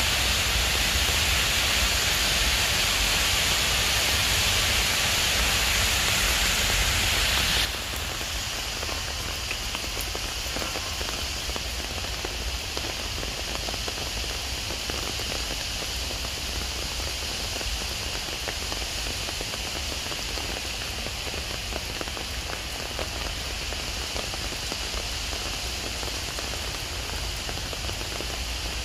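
Steady rain falling on a paved path, grass and trees: an even hiss that is louder for the first eight seconds or so, then drops abruptly to a quieter, steady rainfall.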